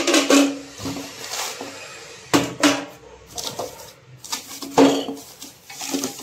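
Metal tandem-box drawer-channel parts clattering and scraping against each other and the cardboard box as they are handled, with several sharp clanks, the loudest just after the start, about two and a half seconds in and near five seconds.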